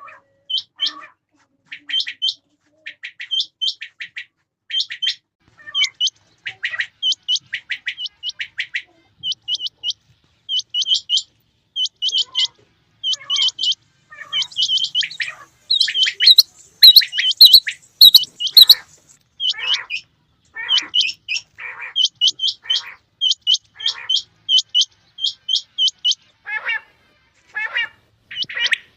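Rain quails calling: short, sharp, high-pitched notes repeated in quick clusters of two or three, over and over. The calling gets busier and louder around the middle.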